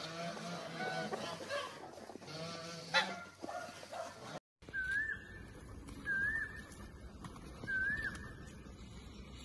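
Several birds calling over one another in overlapping pitched calls. After an abrupt cut, a single bird gives three short warbling chirps about a second and a half apart.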